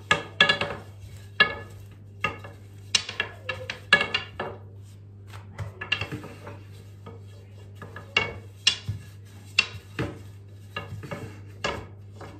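Long, thin wooden rolling pin (oklava) rolling out dough on the counter: irregular sharp wooden clacks and knocks, several a second, some ringing briefly.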